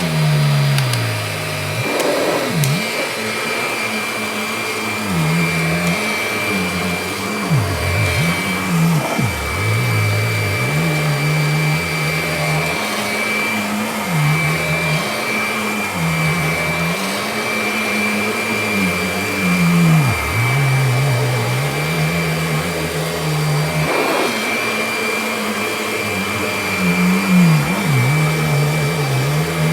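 Kirby Diamond Edition upright vacuum cleaner running while vacuuming a rug: a steady high whine over a lower hum whose pitch rises and falls every couple of seconds as it is worked over the rug.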